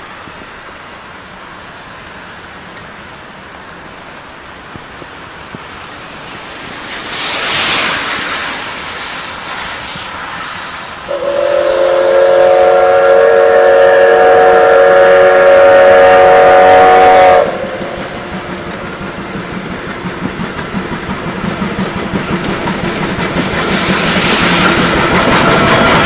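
Steady heavy rain, with a car hissing past on the wet road about 7 s in. A steam locomotive's whistle then sounds a chord of several tones for about six seconds, the loudest sound here. Afterwards the locomotive's chuffing beats grow louder as it draws near.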